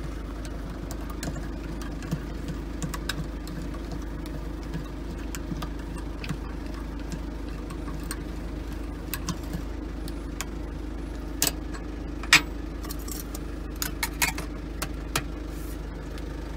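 Hand crank of a wind-up camper-van dining table being turned to raise the table, giving scattered light clicks and a few sharper knocks, the loudest about three-quarters of the way through, over a steady low hum.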